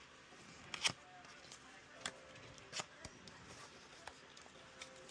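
Packaging and accessories handled during an unboxing: a handful of scattered clicks and rustles, the loudest a quick double click about a second in.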